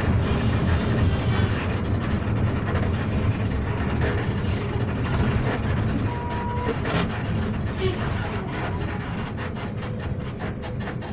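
Steady low engine and road rumble heard from inside a moving vehicle's cabin, easing off slightly as the vehicle slows for traffic ahead. Light rattling clicks come in the middle.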